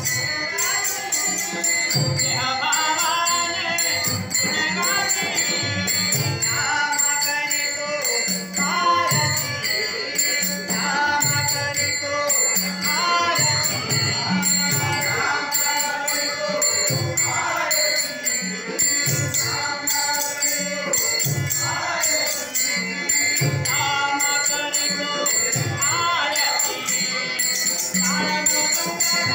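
Marathi devotional abhang sung live by a male lead voice, carried by continuous jingling taal (small hand cymbals) and regular strokes of a mridang drum in a steady rhythm.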